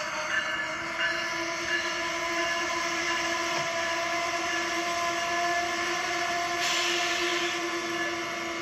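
LEGO City Passenger Train (60197) running on plastic track: a steady electric motor whine over the rattle of its wheels on the track.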